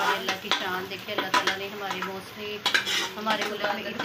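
A metal ladle stirring thick saag in an aluminium cooking pot, knocking and scraping against the pot's side and rim in irregular clinks.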